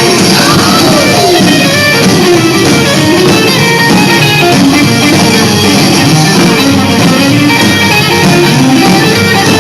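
Live band playing music with a plucked-string sound, loud and continuous.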